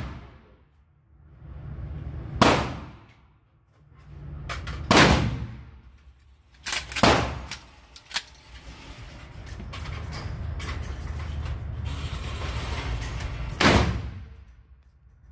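Emperor Arms Duke Ultra 12-gauge pump-action shotgun firing four shots in an indoor range, the first three about two to two and a half seconds apart, then a pause of about six seconds before the last. Each shot is sharp and followed by a short ringing echo.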